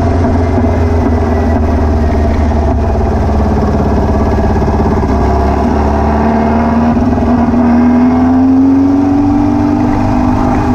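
Air-cooled VW flat-four engine of a beach buggy running while driving, its pitch rising through the middle and easing off near the end. The engine has a misfire that new plugs, leads and distributor arm have not cured.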